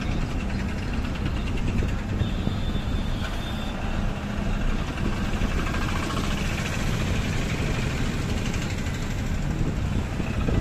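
Car engine and road noise heard from inside a car creeping through town traffic: a steady low rumble, with the engines of auto-rickshaws and other vehicles running close by.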